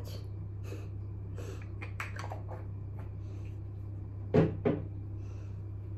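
Soft handling sounds of a skincare jar. About four and a half seconds in comes a sharp clunk, followed quickly by a softer one, as an object is put down or picked up on a hard surface. A steady low hum runs underneath.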